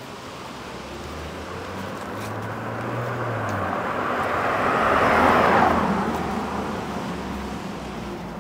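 A car passing by: its tyre and engine noise grows steadily for about five seconds, peaks a little past halfway with a falling sweep in pitch as it goes past, then fades away.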